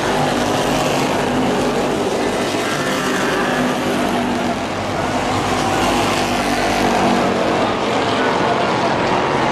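Racing pickup trucks running at speed around an oval: a steady, loud mix of several engines at full throttle as the pack goes by.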